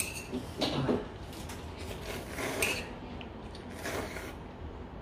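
A person eating noodles and tteokbokki from a bowl: a few soft slurps and chewing noises, with chopsticks scraping against the dish.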